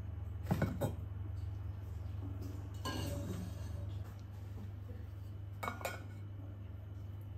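A metal can-shaped drinking tumbler clinking and clicking as it is handled: a quick cluster of light clinks about half a second in, a short rattle near the middle, and two small clicks near the end, over a low steady hum.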